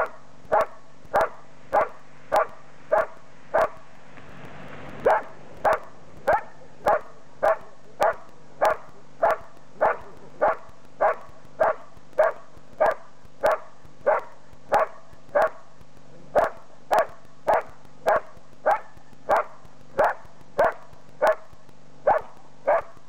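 Belgian Malinois barking steadily and rhythmically, about two barks a second, at a decoy standing in a blind: the guard-and-bark hold, in which the dog keeps the man at bay without biting. The barks pause briefly about four seconds in.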